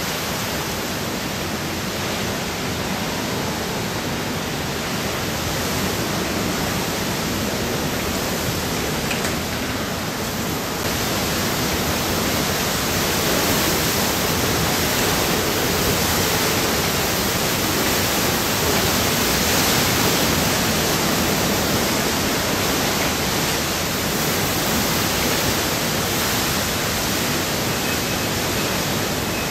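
Typhoon wind and driving heavy rain: a steady, loud rushing noise. It changes a little and grows slightly louder about eleven seconds in.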